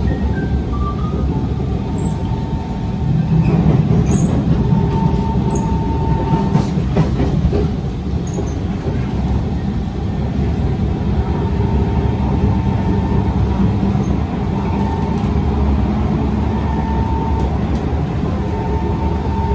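Kawasaki C151 metro train running, heard inside the car: a steady rumble of wheels on the track with a thin steady whine that comes and goes. The rumble swells for a few seconds about four seconds in.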